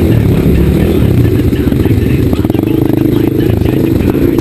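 KTM dirt bike engines idling, a steady low engine sound.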